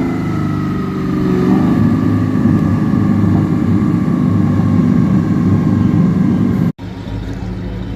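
Car engine running hard on a chassis dynamometer, with a high whine that falls slowly in pitch. The sound cuts out for an instant near the end and then carries on more quietly.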